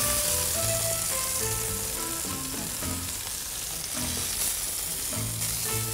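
Chicken breast pieces frying in a pan, a steady sizzle.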